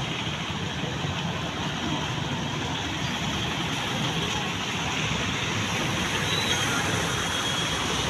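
Steady noise of auto-rickshaw and motorcycle traffic driving through a flooded street, small engines running over the wash of tyres through standing water.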